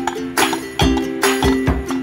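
Background music with a steady, light percussive beat over sustained plucked-string chords.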